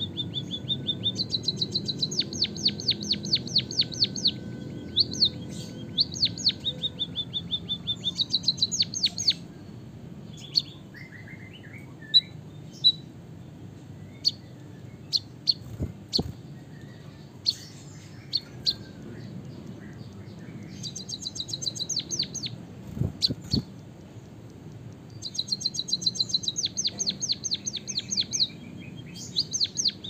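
White-headed munia singing a canary-like song: fast rolling trills of repeated high chirps in runs of a few seconds, with scattered single chirps in a gap of about ten seconds in the middle. Two dull knocks sound during the gap.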